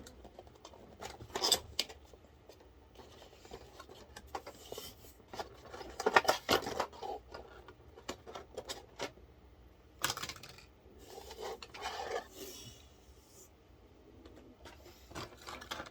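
The boxed stock CPU cooler being taken out of its packaging by hand: irregular rubbing, scraping and rustling, with a few sharp clicks and knocks. The loudest handling comes about a second and a half in, around six seconds in, and around ten to twelve seconds in.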